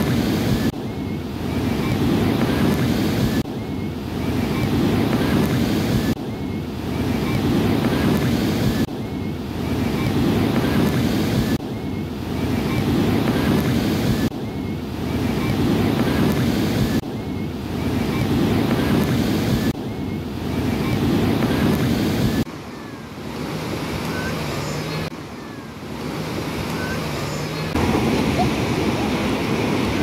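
Heavy surf breaking and washing up the beach, with wind on the microphone. The roar swells and drops off abruptly every few seconds, goes quieter with a faint low hum about two-thirds of the way through, then comes back loud near the end.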